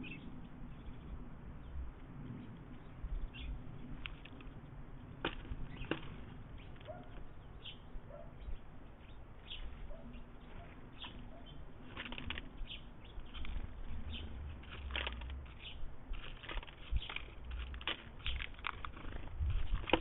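Eurasian jay foraging in a wicker feeder basket of seeds and nuts: irregular pecks, taps and rattles of seed and hazelnuts, coming thicker in the second half, over a low rumble.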